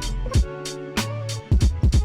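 Background music: a hip-hop-style instrumental with a steady drum beat, deep bass and sustained instrument tones.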